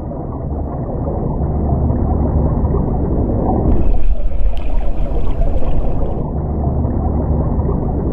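Muffled underwater noise picked up by a submerged camera: a steady low rumble and gurgle of moving water. A brighter hiss joins for about two seconds near the middle.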